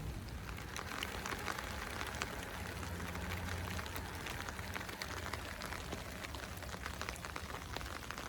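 Steady rain falling, a dense patter of drops, with a low steady hum underneath.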